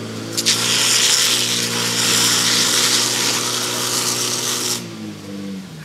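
Firefighting pump engine running hard while water jets from the hose nozzles spray with a loud hiss, which starts suddenly about half a second in and cuts off about a second before the end. Near the end the engine's pitch falls as it slows down.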